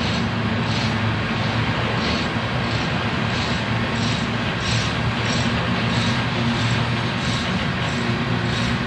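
Freight train of coal hopper cars rolling past: a steady rumble and wheel-on-rail noise, with a regular high clicking about every half second.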